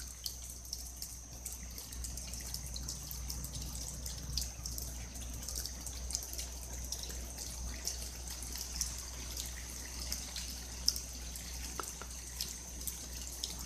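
Rain falling and dripping during a thunderstorm: a faint steady wash with many small, scattered drip ticks.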